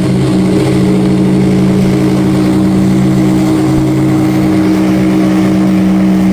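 Ship's triple-chime (triple barrel) steam whistle sounding one long, steady blast: a deep chord of several held tones.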